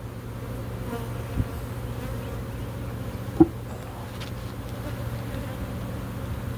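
Honey bees buzzing around an opened hive in a steady, many-winged hum. Two brief knocks sound over it, the louder one about halfway through.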